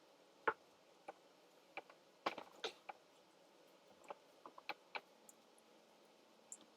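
Faint, irregular small clicks and taps, about a dozen spread unevenly over a few seconds, from someone eating chicken nuggets and handling the food.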